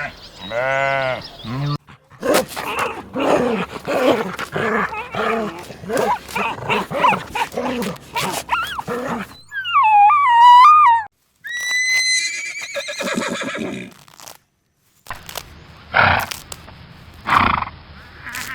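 A run of farm-animal calls from different animals in turn: a bleat at the start, then a long stretch of many quick calls, then several separate pitched calls with short gaps between them.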